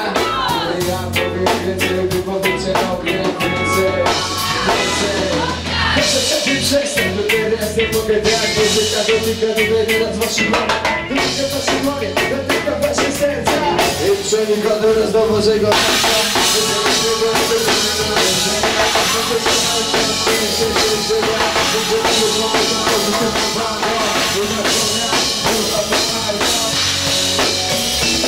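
A live band plays loud, drum-driven rock music. The drum kit's kick, snare and cymbals are prominent throughout, over sustained instrument lines.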